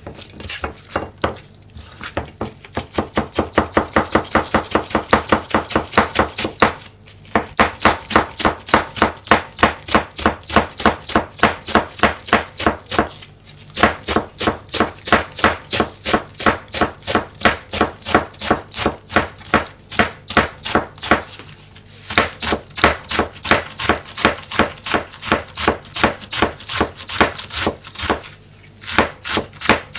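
Kitchen knife rapidly shredding cabbage on a plastic cutting board: an even rhythm of about five chops a second, in long runs with short breaks every several seconds.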